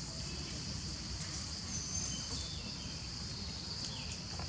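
Steady high-pitched drone of insects in the forest, over a low background rumble, with a couple of faint high chirps about two seconds in.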